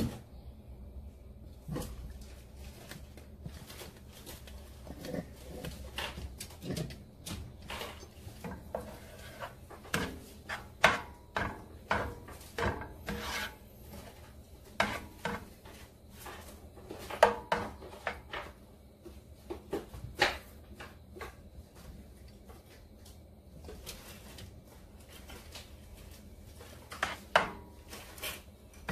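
Cooking spoon scraping and pushing butter around a nonstick frying pan as the butter melts: irregular scrapes and light knocks against the pan, over a low steady hum.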